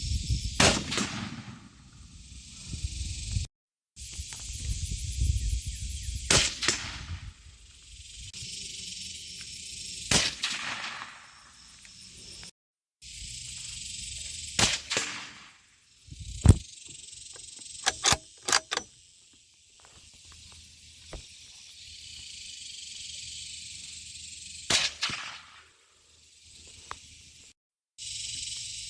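Single rifle shots from a 7.62x39 Ruger American Predator bolt-action rifle, fired one at a time several seconds apart, about six in all. The first is fired without a silencer and the rest through silencers. A quick run of sharp clicks comes about 18 seconds in, between shots.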